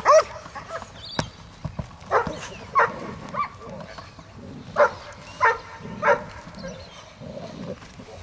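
A dog barking in single sharp barks, spaced about half a second to a second apart, with a sharp click about a second in.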